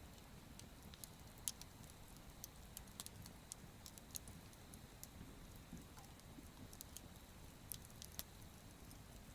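Wood campfire crackling: scattered sharp pops and snaps, a few a second and uneven in strength, the loudest about one and a half seconds in, over a faint low rumble.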